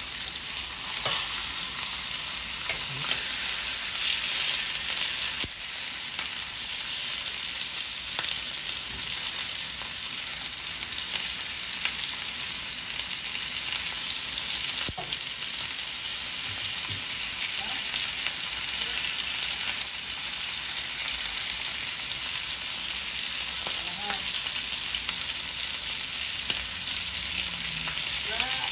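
Two bone-in ribeye steaks sizzling steadily in melted butter and olive oil in a ridged grill pan over medium heat, with occasional light clicks and scrapes of a metal spoon basting them.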